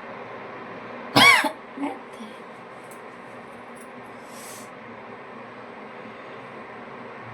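A woman gives one loud, short cough with a rise and fall in pitch, then a smaller one about half a second later, and a short breathy hiss a few seconds after. These are throat and nose noises made while trying to bring on a sneeze that does not come.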